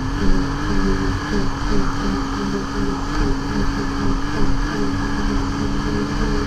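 Yamaha SR Viper snowmobile engine running at a steady cruise, a constant droning hum that holds its pitch.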